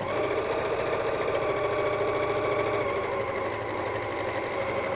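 Janome electric sewing machine running steadily at constant speed, stitching a seam to join two pieces of fabric.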